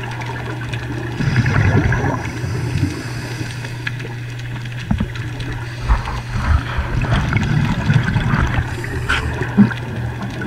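Underwater sound of a scuba diver breathing through a regulator: two louder rushes of exhaled bubbles gurgling past, over a steady low hum.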